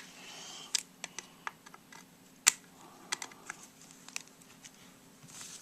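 Scattered small clicks and taps of plastic parts being handled as an old Sharp clock radio is taken apart, with one sharper click about two and a half seconds in.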